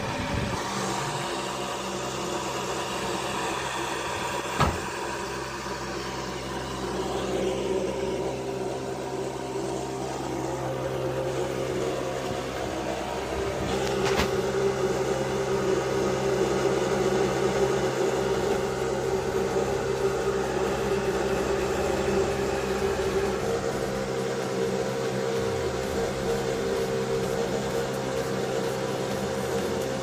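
Small 12 V DC fan of a homemade drum air cooler running with a steady hum, with one sharp click about four and a half seconds in.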